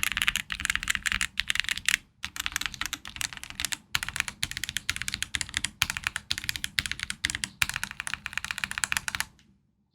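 Yunzii YZ87 prebuilt TKL mechanical keyboard being typed on fast and steadily, a dense run of key clicks with a couple of brief pauses, stopping abruptly near the end.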